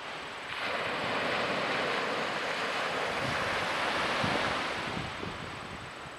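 Small waves washing onto a sandy beach: a long surf hiss that swells about half a second in and eases toward the end, with wind gusting on the microphone.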